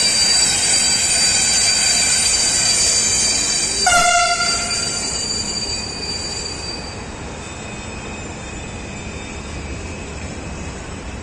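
Freight train of open box wagons rolling through the station behind an electric locomotive, its wheels squealing in several steady high tones that fade over the second half. About four seconds in, a sharp click is followed by a short tone lasting about a second.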